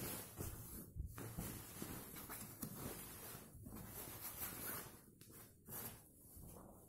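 Faint rustling and rubbing of a handheld camera being moved about, over quiet room tone.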